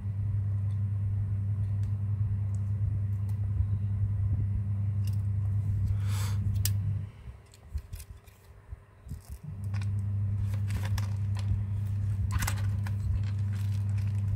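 A steady low electrical hum cuts out about seven seconds in and comes back about two and a half seconds later. Scattered clicks and scrapes come from plastic pry tools and phone parts being handled while prying at a strongly glued-in phone battery.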